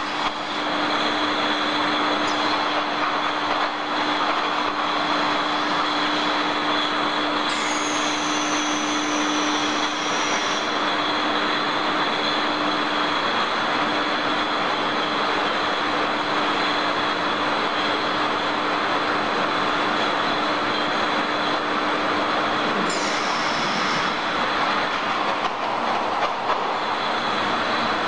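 Bottle-loading conveyor of a glass-bottle sterilizer line running, carrying rows of glass vials: a steady machine noise with a constant low hum and high whine. A high squeal lasting about three seconds comes about eight seconds in, and a shorter one near the end.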